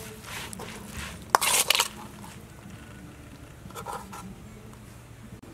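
Minced pork larb salad being mixed in a bowl with a spoon: a sharp clink and a loud scrape of the spoon against the bowl about a second and a half in, and a softer scrape near four seconds.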